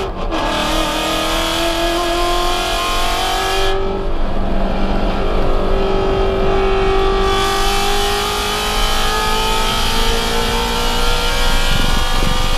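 Shelby GT350's 5.2-litre flat-plane-crank V8, heard from inside the cabin at full throttle on track. The note cuts out briefly right at the start as it shifts up a gear, then climbs slowly in pitch toward about 7,500 rpm.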